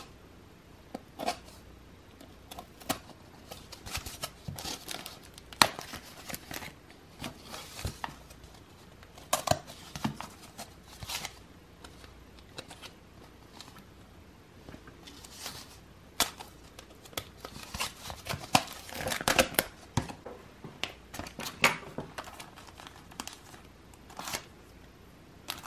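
Packaging being opened by hand: irregular tearing, crinkling and rustling of wrapping, with scattered sharp clicks and taps.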